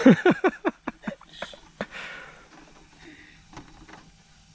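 A short burst of laughter, quick strokes falling in pitch, then scattered sharp plastic clicks and taps as an RC car's body and body clips are handled.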